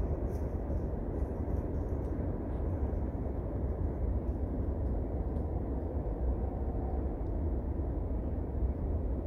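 Steady low rumble and hiss of outdoor background noise, with a few faint ticks and no distinct event.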